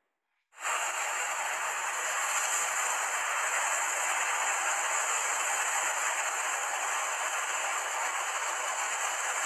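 Shallow seawater washing over sand: a steady hiss that cuts in abruptly about half a second in.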